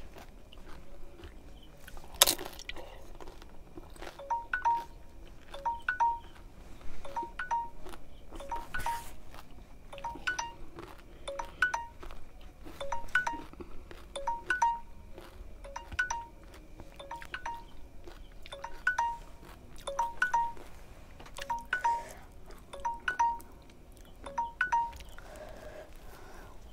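A mobile phone alarm or timer tone plays a repeating, chime-like pattern of short, clear notes for about twenty seconds and stops near the end. A sharp crunch or click sounds about two seconds in.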